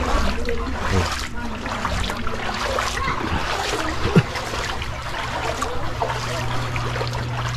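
Water trickling and splashing, with a steady low hum coming in about halfway through.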